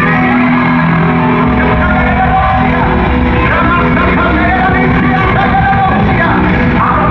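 Loud live gospel music: singers on microphones over a band with held bass notes, amplified in a large hall, with shouting mixed in.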